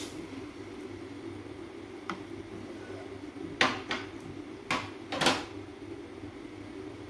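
A few short knocks and clatters of a bowl and spatula against a nonstick wok, the loudest two close together near the middle, over a steady low hum.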